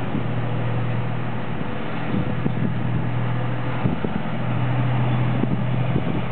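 Freight train of hopper wagons rolling over a steel girder bridge: a steady rumble with a low drone, and scattered knocks and clacks from the wheels over the rails. The drone grows louder about two thirds of the way through.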